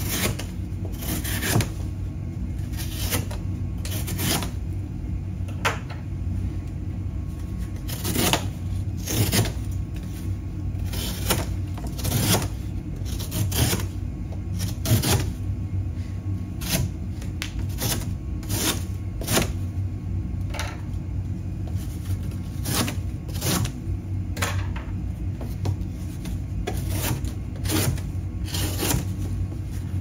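Unsharpened folding pocket knife slicing through corrugated cardboard in short, irregular strokes, roughly one or two a second, over a steady low hum.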